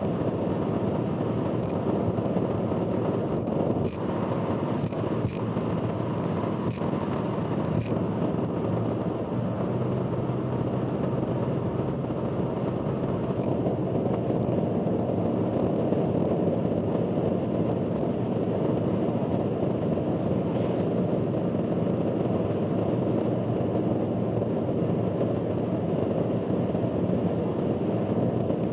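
Steady road noise of a car driving on an expressway, with a faint low hum. Scattered sharp clicks or rattles come through the first several seconds, with a few more later.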